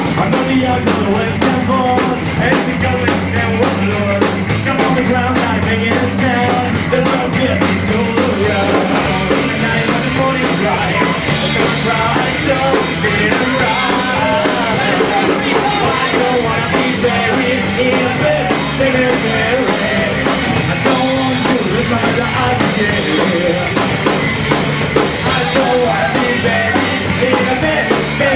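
Live rock band playing loudly and steadily, drums and all, with a fast, regular cymbal ticking through the first third that gives way to a fuller passage.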